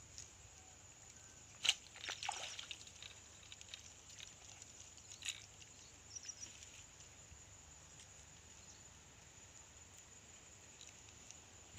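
Faint rustling and a few sharp clicks as a fishing pole and line are handled in grass, over a faint steady high-pitched hum.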